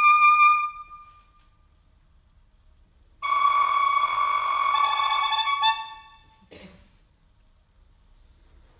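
Held musical notes from an instrument: one dies away about half a second in, then after a pause another starts abruptly, a second lower pitch joins partway through, and it stops after about two and a half seconds, followed by a short rustling burst.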